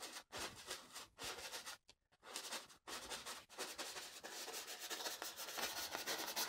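A paintbrush scrubbing oil paint onto a stretched canvas in quick short strokes, faint and scratchy. It stops briefly about two seconds in.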